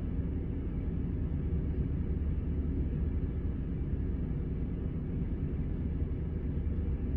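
Diesel engine of a Setra S 431 DT double-decker coach running with a steady, even low rumble.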